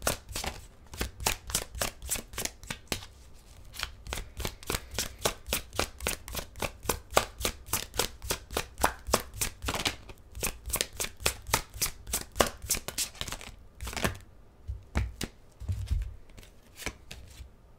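A tarot deck being shuffled by hand, the cards clicking in a quick, even rhythm of about four to five a second. Near the end the rhythm breaks into a few separate taps.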